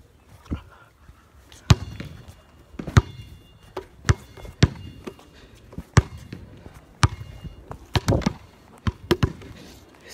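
Footsteps on pavement and knocks from a handheld camera jostled as it is carried: sharp thuds at uneven gaps of about a second.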